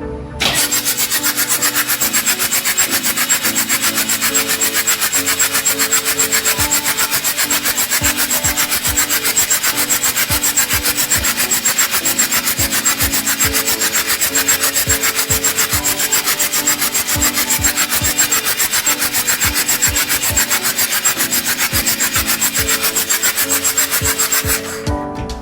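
A fast, even scraping or rasping, with many strokes a second, over background music. It starts suddenly just after the beginning and cuts off shortly before the end.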